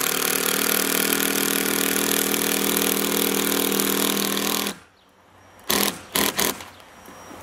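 Cordless impact driver running steadily as it drives the lag screw of an IronRidge FlashFoot 2 roof mount down through the asphalt shingles, stopping abruptly after about four and a half seconds. About a second later come two or three short loud bursts.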